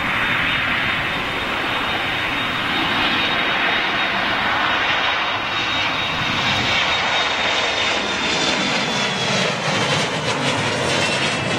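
An Embraer E-Jet's twin General Electric CF34 turbofans at take-off power as it rolls, lifts off and climbs away: a steady, loud rush of jet noise with a thin high whine that drops slightly in pitch in the later seconds.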